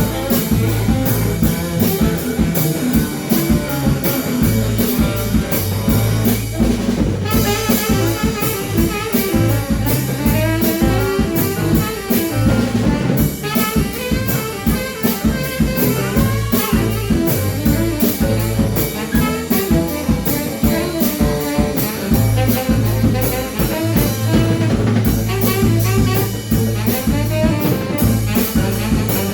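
A band playing an instrumental break of a blues song, with drum kit and horns (saxophone, trumpet, trombone) carrying the tune.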